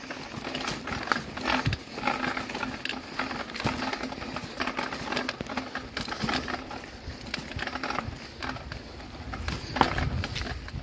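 Mountain bike rolling over a hard dirt track strewn with stones, its tyres crunching, with frequent irregular clicks and rattles from the bike.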